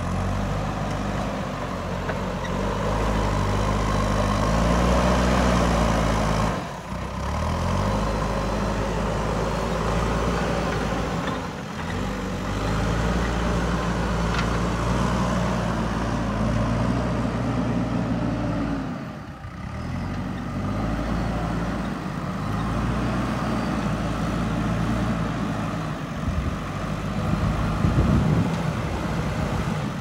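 JCB 3DX backhoe loader's diesel engine working under load as its front loader bucket pushes and carries soil, the engine note rising and falling as it is throttled up and down, with a few short breaks.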